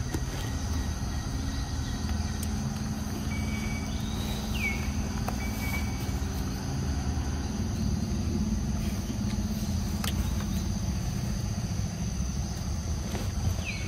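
Outdoor ambience with a steady low rumble and a faint high insect drone. A short, high call falling in pitch sounds twice, about five seconds in and again near the end.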